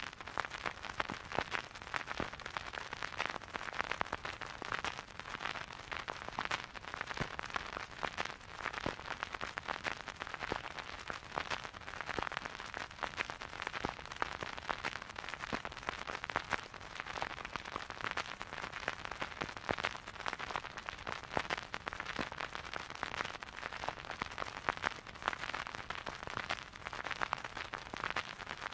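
Surface noise of a vinyl record played with no music: a steady crackle with frequent small pops and clicks from the stylus riding the groove.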